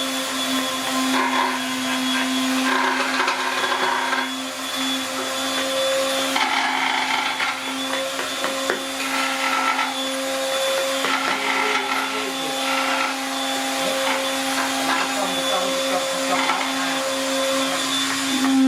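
An electric power tool running steadily with a constant motor hum, with bursts of rasping noise that come and go every second or two as it works the wood.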